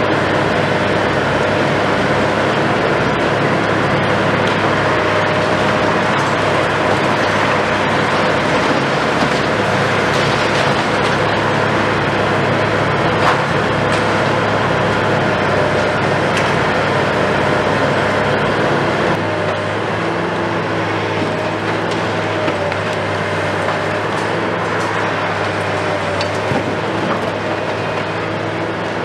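Hitachi KMC 520 BTV demolition excavator's diesel engine and hydraulics running steadily, with the hiss of a dust-suppression water spray. There is a single sharp knock about 13 seconds in, and the sound gets slightly quieter after about 19 seconds.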